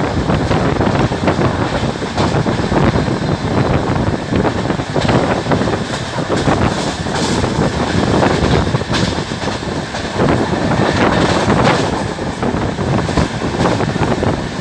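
Vaishali Express passenger train running at speed, heard from an open coach doorway: steady wheel-on-rail rumble with wind buffeting the microphone, and a few sharp clacks from the wheels over the track.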